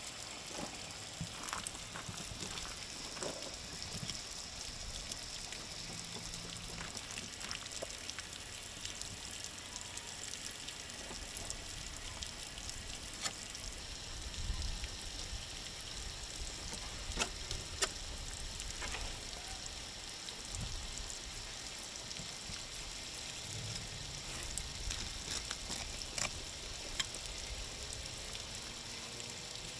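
A faint, steady crackling hiss, with a few light clicks and scrapes from a fillet knife cutting along a tuna's backbone on a plastic cleaning table.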